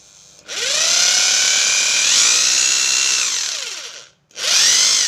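DCJ 1200 W hammer drill's motor spinning up with a rising whine about half a second in, running for about three seconds, then winding down with falling pitch and stopping. It is triggered again and whines back up just before the end.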